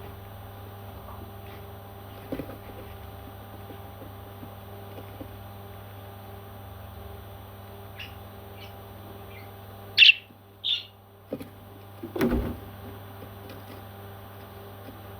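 Baby parrots giving faint short chirps, then two loud high calls about ten seconds in, over a steady low hum. A loud thump follows about two seconds later.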